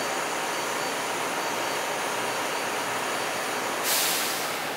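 Steady hum of a stationary automated people-mover train car with its doors open, then about four seconds in a short, loud hiss of released air from the train's pneumatic system.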